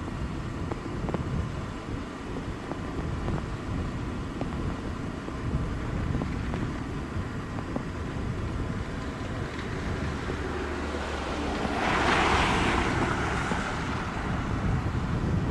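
JetBlue Airbus jet landing in rain: a steady low rumble of engines and wind on the microphone, swelling to a loud rush about twelve seconds in as the jet touches down and rolls out on the wet runway.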